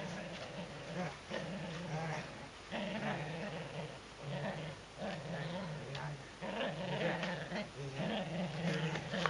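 Shetland sheepdog play-growling while tugging on a toy, a run of short growls one after another.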